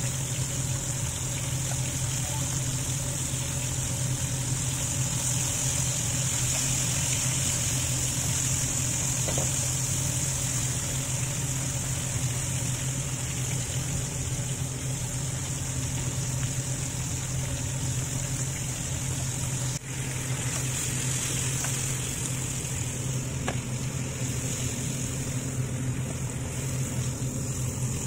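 Flour-coated beef strips deep-frying in hot oil, a steady sizzle, over a steady low hum.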